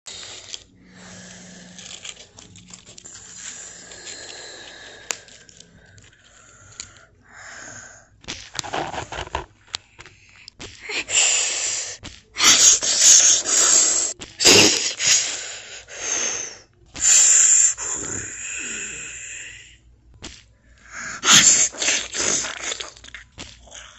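A person voicing dinosaur roars and hisses for toy dinosaurs in a play fight: breathy, rasping vocal bursts, quieter at first and loud and repeated in the second half.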